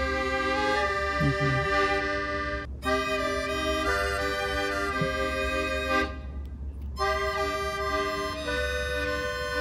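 Background music with held melodic notes, breaking off briefly twice.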